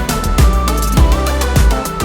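Electronic background music with a steady, driving beat of bass kicks and sharp percussion under a synth melody.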